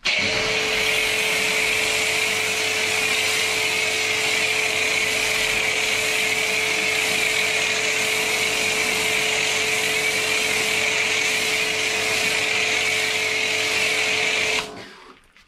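Kärcher electric pressure washer running with the trigger held, a steady motor hum under the loud hiss of a snow foam lance spraying foam. It cuts off suddenly near the end.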